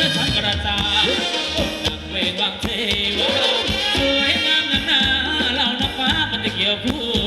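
Live band playing Thai ramwong dance music: a singer over a steady bass and drum beat.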